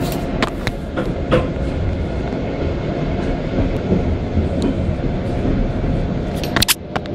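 Passenger train running, heard from inside the carriage: a steady rumble of wheels on rail, with a few sharp clicks about a second in and again near the end.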